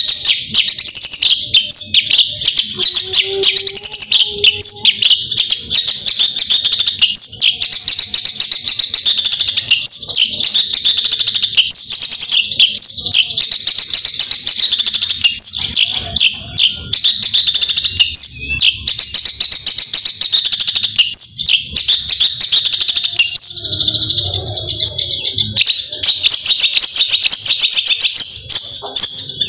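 Long-tailed shrike (cendet) singing a rapid, almost continuous stream of high chattering notes. The song breaks off for a couple of seconds about four-fifths of the way through.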